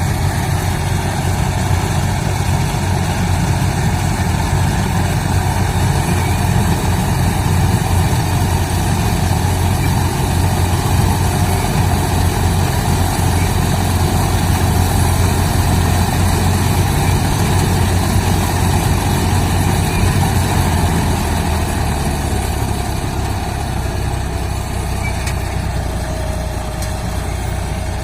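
Heavy diesel farm-machine engine running steadily. Its low note shifts down slightly about three quarters of the way through.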